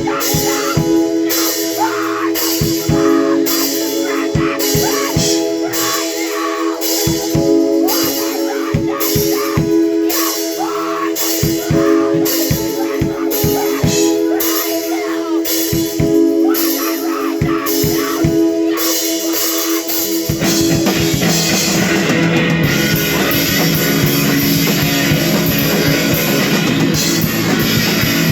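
Live rock band playing, with drum kit and electric guitar. For about twenty seconds the drums hit a steady beat under a held guitar note, then the whole band comes in fuller and denser.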